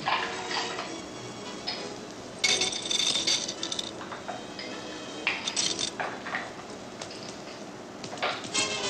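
Ice cubes clinking into a glass and against metal bar tongs, in several short bursts of clinks; the longest comes about two and a half seconds in.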